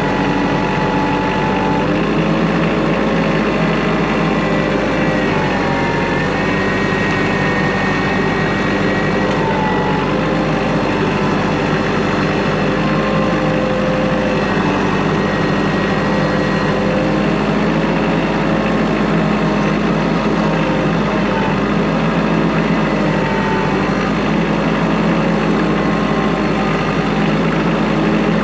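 Kubota L3940 tractor's diesel engine running steadily, with faint whining tones that drift up and down in pitch over it.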